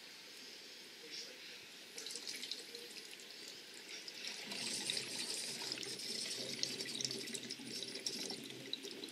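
Liquid gurgling and bubbling in a mason jar as air is sucked back through the tubing, drawing the liquid from one jar into the other: a mock suck-back like a fermenter pulls when it is cold-crashed. It starts about two seconds in and grows busier and louder in the second half.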